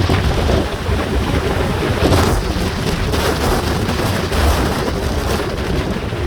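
Typhoon gale and heavy storm surf: rushing wind buffeting the microphone in a deep rumble over the wash of breaking waves, swelling about two seconds in.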